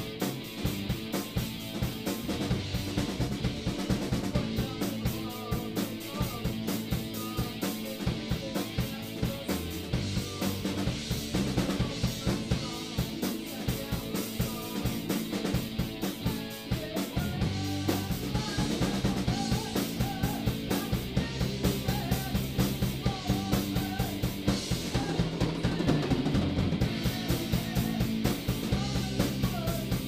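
Amateur rock band playing live: two electric guitars, bass guitar and a drum kit, with a steady, busy drum beat and moving bass notes.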